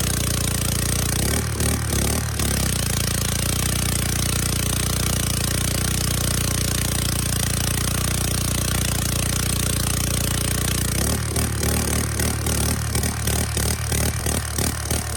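Pressure washer's Briggs & Stratton small gas engine running steadily. From about 11 seconds in the sound turns uneven and pulsing.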